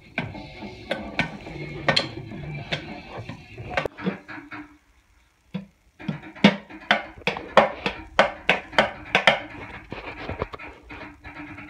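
A toddler drumming with wooden sticks on upturned powdered-milk tins and an oats canister, an uneven run of knocks. After a short break near the middle the hits come fast and loud, about two to three a second, then thin out near the end.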